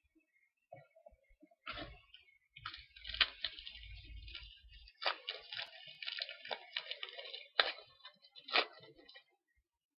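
Foil trading-card pack wrapper being torn open and crinkled, with sharp crackles, the loudest near the end, as the cards are handled.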